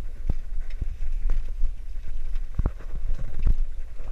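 Irregular knocks and rattles from a bicycle and its wire front basket jolting over a cracked concrete lane, over a steady low rumble of wind and road.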